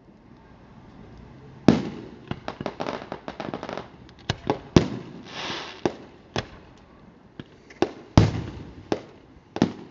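Aerial fireworks display: a loud shell burst a little under two seconds in sets off a quick run of sharp crackling reports. More loud bangs follow around the middle and again near the end, with a short hiss between them.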